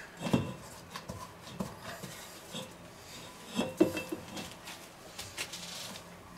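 Gloved hand scraping and wiping soft cookie dough out of a stainless steel mixing bowl: scattered short rubbing and scraping sounds with a few light knocks of the bowl, busiest a little past halfway.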